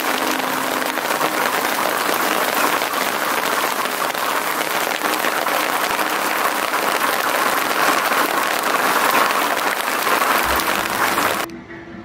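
Rain mixed with small hail pelting concrete and gravel: a dense, steady patter of fine ticks. It cuts off sharply about eleven and a half seconds in.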